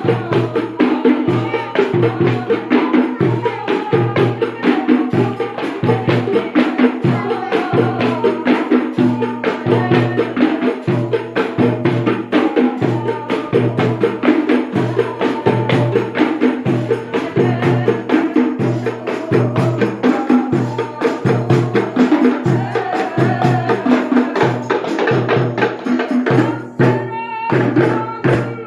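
Sholawat-style devotional music: a steady low drum beat with dense jingling and clicking hand percussion, over sustained melodic lines, with a brief break in the rhythm near the end.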